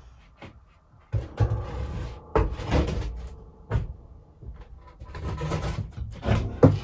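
A strip of 7/16-inch OSB board being pushed up through an attic hatch and laid down on the wooden floorboards: a run of scrapes, knocks and thumps of board on wood.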